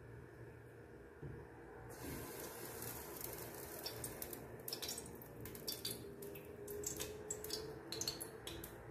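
Cooking oil poured from a bottle over a metal spoon into a metal pot. A liquid pouring and splashing sound starts about two seconds in, with scattered crackles.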